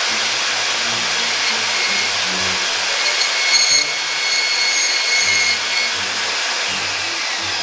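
Portable band saw running and cutting through a large cold air intake pipe with a steady hissing rasp. A thin ringing tone comes in through the middle of the cut, and near the end a high whine slides down in pitch.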